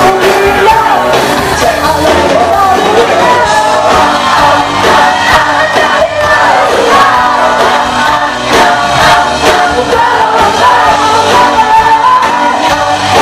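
Live pop-rock band playing with female and male voices singing over it, recorded loud from within the audience.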